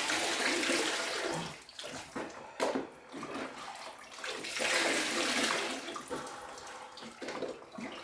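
Ice water poured from a jug over a person's head and shoulders, splashing back into the ice-filled chest freezer plunge. The pouring comes in waves, louder at the start and again about halfway through.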